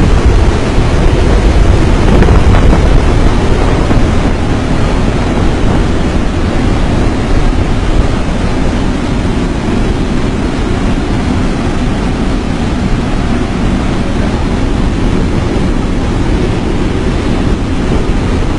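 Loud, steady rush of wind and engine noise inside a military transport plane's cabin with the jump door open, the slipstream buffeting the microphone. It is a little louder for the first few seconds, then holds steady.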